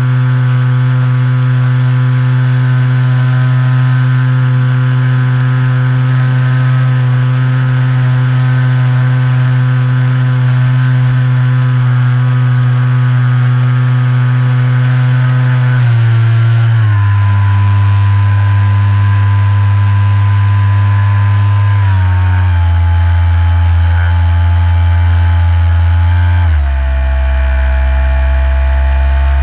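Electric motor and propeller of a Reely Phönix RC plane, heard from a camera in its cockpit, running with a steady buzzing drone and a thin high whine above it. The pitch drops in clear steps about halfway through, again a few seconds later, and near the end, as the motor is run at lower speeds.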